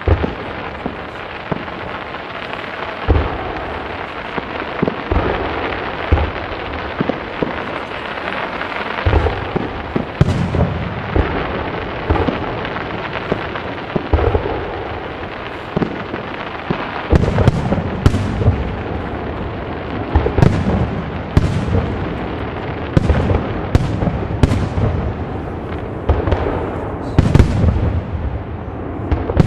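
Fireworks display: a continuous dense crackling with repeated booming shell bursts. The bangs come thicker and sharper from a little past halfway through.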